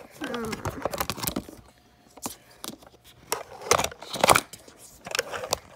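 Stiff board-book pages being handled and turned: a string of knocks, clicks and rubs, the loudest about four seconds in.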